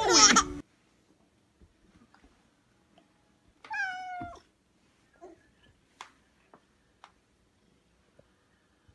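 A baby's laughter cuts off in the first half second. About four seconds in, a tabby house cat gives one short meow that falls in pitch, followed by a few faint taps.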